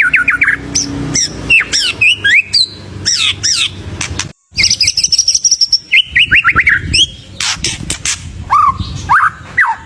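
White-rumped shama (murai batu) singing in full voice: a fast, varied run of chirps, rapid note series and whistled phrases that slide up and down in pitch, its song packed with mimicked calls. A long high whistle comes just after a brief break about four and a half seconds in.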